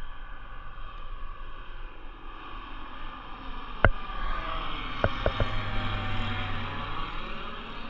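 Small single-engine propeller plane flying low overhead, its engine and propeller drone swelling as it passes, the pitch bending down. A few sharp clicks break in, the loudest about four seconds in and three close together about a second later.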